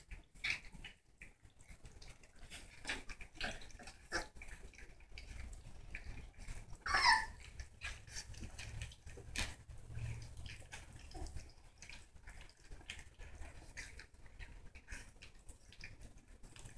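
Puppies gnawing on chicken drumsticks: faint scattered clicks and smacks, with one short whine from a puppy about seven seconds in.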